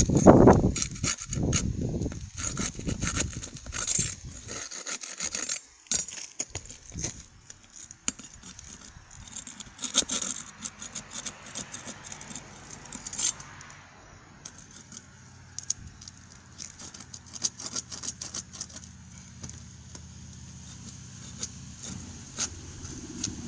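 Scattered scrapes, rustles and small clicks of handling and movement on a shingle roof, heaviest in the first few seconds.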